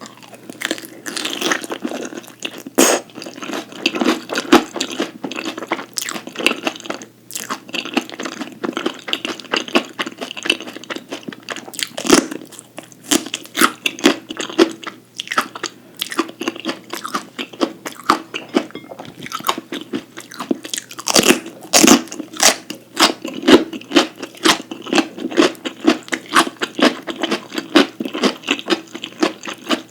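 A person chewing and biting crisp food, with frequent irregular crunches throughout.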